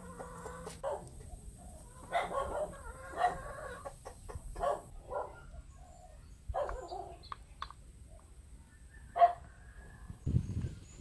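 Chickens clucking in short, scattered calls, with a low thump near the end.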